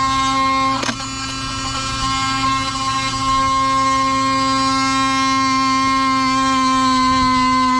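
Hand-held cordless power saw running steadily with an even motor whine as its blade cuts into a small tree branch. It dips briefly about a second in, then runs a little louder and steady from about three seconds on.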